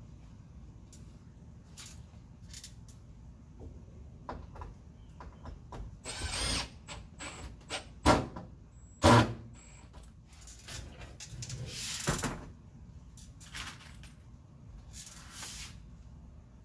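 Cordless drill-driver run in several short bursts at wooden tongue-and-groove ceiling boards, among scattered knocks and clicks; two sharp knocks a little past halfway are the loudest sounds.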